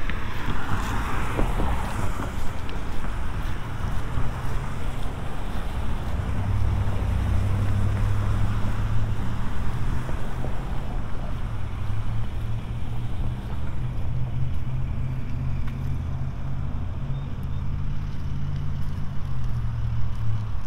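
Tyres of a passing car hissing on a wet road in the first couple of seconds, then a vehicle engine's low steady hum from about six seconds in, with traffic in the background.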